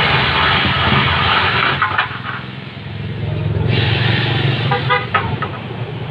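Pullman jigsaw running and cutting through a thin 1x6 wooden plank, stopping about two seconds in and then cutting again. A vehicle horn toots briefly near the end.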